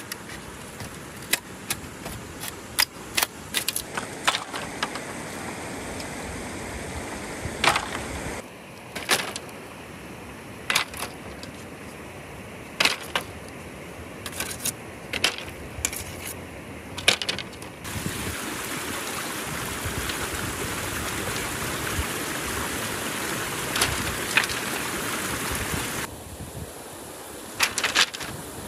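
Machete chopping bamboo: a series of sharp knocks, closely spaced in the first few seconds and scattered after, over a steady hiss.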